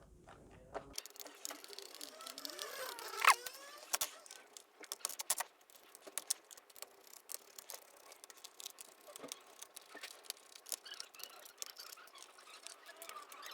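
Lenovo G570 laptop being taken apart by hand: a run of small clicks, taps and rattles from screws and plastic casing, with a few short squeaks about two to three seconds in and a sharp click a little after.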